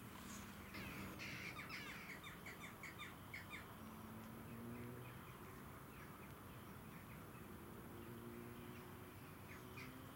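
A bird's harsh, rapid chattering call, about four or five notes a second, starting about a second in and lasting a couple of seconds, with a few scattered single calls later.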